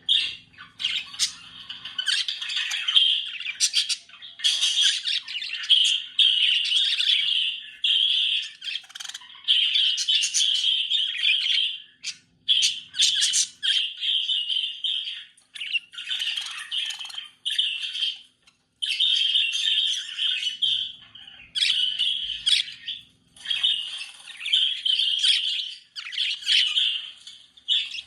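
Budgerigars chattering and warbling: a near-continuous stream of squawks and chirps broken by short pauses every few seconds.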